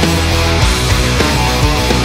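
Loud heavy rock music with a steady drum beat.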